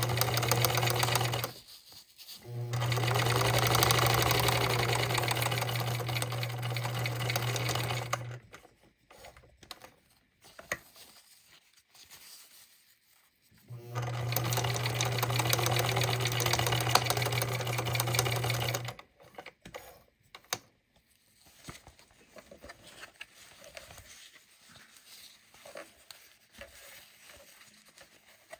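Electric sewing machine stitching through a Velcro strap in three runs: a short one at the start, a longer one of about six seconds, and another of about five seconds near the middle. Each run is a motor hum with rapid needle clatter that stops abruptly. Between runs and near the end there are only faint handling clicks as the strap is repositioned.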